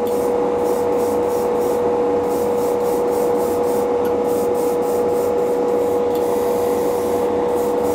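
Hobby spray booth's extraction fan running steadily with a constant hum, relatively loud, under the hiss of an airbrush spraying water-based gray primer onto a miniature.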